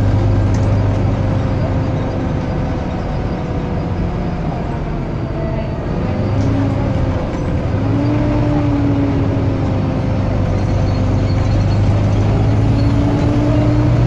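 Volvo B9TL double-decker bus's six-cylinder diesel engine droning under way, with the vacuum-cleaner-like whine that earns these buses the nickname 'Hoover', heard from inside the passenger saloon. The drone eases off about four seconds in and builds again from about eight seconds, rising slowly in pitch.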